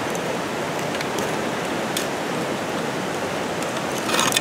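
Steady rushing of flowing water, an even hiss that does not let up. A brief rustle comes near the end.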